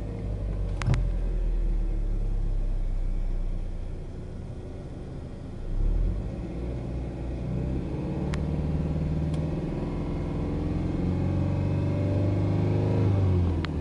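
Subaru Impreza 2.5GT tS turbocharged 2.5-litre flat-four engine, heard from inside the cabin, fast-idling just after a start. It then rises in pitch as it is revved and held at about 3,000 rpm, and drops back near the end.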